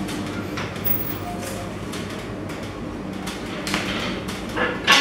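Footsteps going down stairs, with a steady rustle from the handheld phone and a few knocks; the loudest knock comes near the end.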